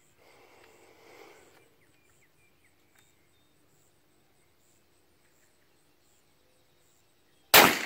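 A single loud shotgun blast about seven and a half seconds in, from a 12-gauge Remington 870 Express pump shotgun loaded with bird shot, after several seconds of near quiet.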